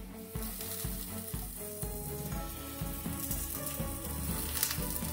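Strips of yellow bell pepper sizzling in a hot skillet with a little olive oil, over background music with a steady beat.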